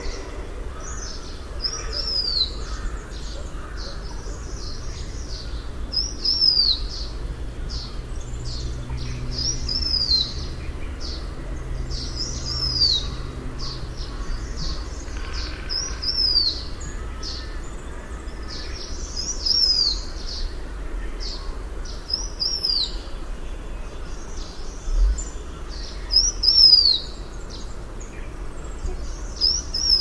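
Blue-winged minla calling: a high, clear downslurred note repeated every few seconds, mixed with short high chirps, over a steady low rumble.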